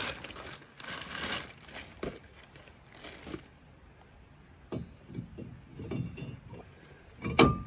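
A plastic bag crinkling as a new drilled and slotted brake rotor is unwrapped, then several light knocks and a ringing metal clink near the end, the loudest sound, as the rotor is fitted over the hub studs.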